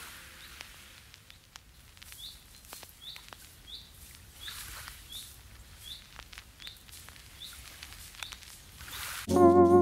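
A small bird chirping over and over, short rising chirps repeating about every two-thirds of a second, with a few faint clicks alongside. Guitar music comes in loudly near the end.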